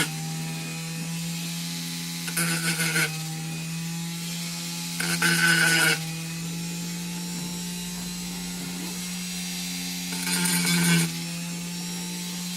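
WEN 2305 rotary tool running steadily through its flex shaft, its spinning bit grinding against the edges of a plastic water bottle in three short passes of about a second each, near two, five and ten seconds in.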